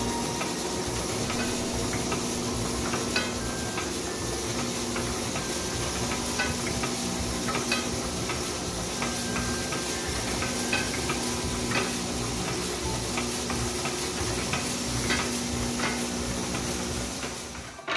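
Platen letterpress running under power while inking up: the form rollers roll across the freshly inked disc with a steady sticky hiss, and the mechanism gives off scattered light clicks. The sound cuts off near the end.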